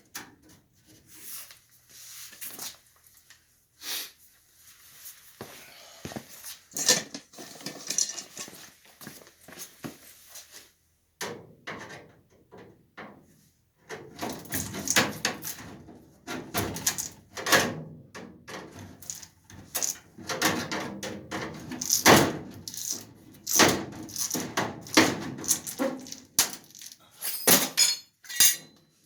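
Irregular knocks, clunks and scraping from hands-on work, as tools and parts are handled. There is a nearly quiet pause a little over a third of the way in, then busier, louder clattering.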